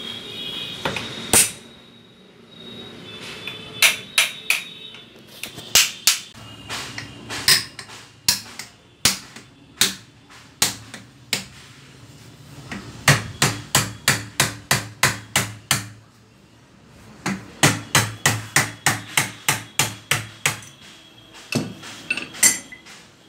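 Hammer blows on a gas-charged mono shock absorber clamped in a bench vise, metal on metal with a short ringing after some strikes. The blows come singly at first, then in quick runs of about three a second.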